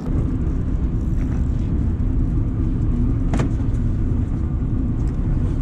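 Small fishing boat's engine running with a steady low rumble, and one sharp click about three and a half seconds in.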